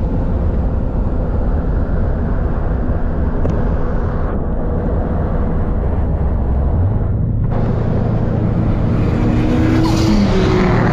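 A car engine running with a loud, steady low rumble as the car drives off. Its pitch steps up about seven seconds in, and the revs climb near the end.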